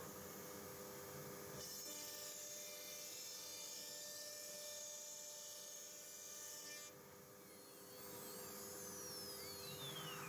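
CNC router spindle running steadily while the bit carves an ornament into MDF, with a high cutting hiss from about one and a half to seven seconds in. Near the end, several motor whines glide down in pitch as the machine's axes move.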